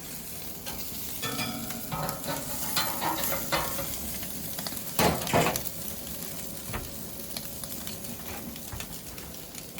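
Sardines sizzling on a hot grill, with scattered clicks and scrapes of utensils against the grate and one louder scrape about five seconds in.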